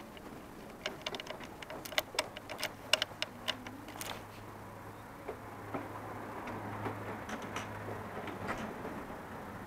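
A run of sharp clicks and taps, several a second for a few seconds, from handling a stopped Honda motorcycle and its controls with the engine not yet running.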